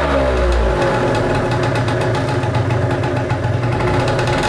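Gilera Runner SP 50 scooter's stock 50 cc two-stroke single-cylinder engine idling through its exhaust, the pitch wavering slightly.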